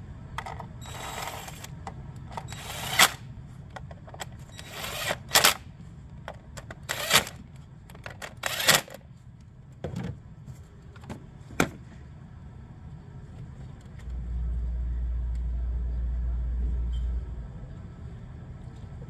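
Tools and parts being handled: a run of sharp clicks and clatters over about twelve seconds. From about fourteen seconds in, a steady low hum runs for about three seconds.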